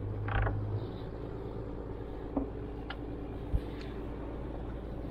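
Steady low drone of a boat engine running, with three sharp knocks between about two and a half and three and a half seconds in.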